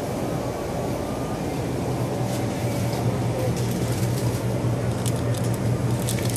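Steady low hum of a refrigerated drinks cooler and ventilation, a little louder from about halfway. Near the end come quick crackling clicks as a plastic sports-drink bottle is handled and pulled off the shelf.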